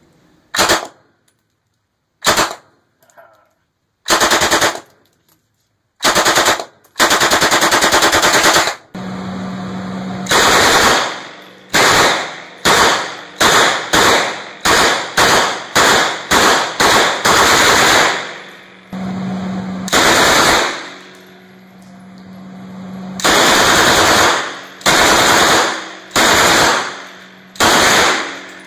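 Full-auto UZI submachine gun in 9x19mm firing a long series of bursts, some short and some running a second or two, at the relatively slow rate of fire of this open-bolt gun. Each burst echoes off the range walls.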